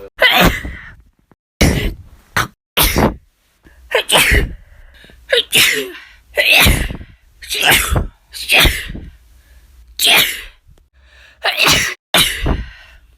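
A woman sneezing again and again, about a dozen sharp sneezes in quick succession, roughly one a second, some cut off abruptly by edits between clips.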